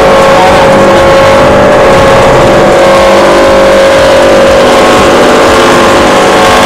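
Stainless-steel static rotary dryer running: a loud, steady machine noise with a steady whine through it, very noisy.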